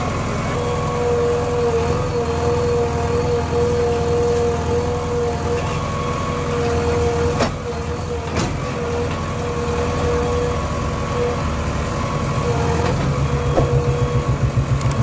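JCB backhoe loader's diesel engine running under load while the backhoe digs, with a steady high tone over the rumble. Two sharp knocks come about halfway through, and the engine sound turns to a rapid pulsing near the end.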